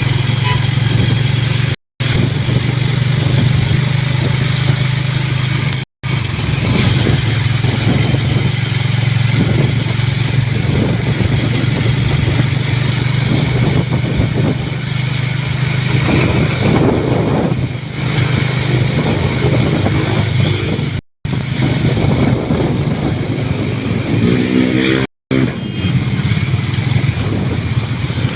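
A motor vehicle travelling on a road: steady engine drone with road and wind noise. The sound drops out completely for a moment four times, and a short pitched tone from another vehicle sounds near the end.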